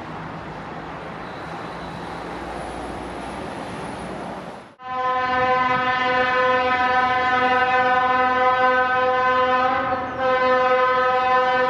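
Steady outdoor noise, then about five seconds in a railway locomotive's horn starts sounding one long, steady note. It breaks for an instant near the end and sounds on again.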